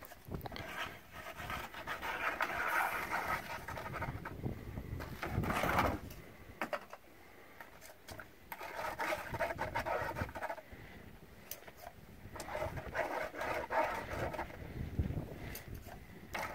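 Water swishing and sloshing in a plastic gold pan, with grit rubbing, as drywasher concentrates of black sand are panned down in a tub of water. It comes in three spells of a few seconds each, with short pauses between.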